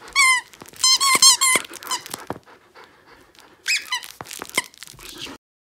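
Plush squeaky toy squeaking again and again as a Samoyed bites and tugs on it, in quick bursts of high squeaks with a lull in the middle; the sound cuts off suddenly near the end.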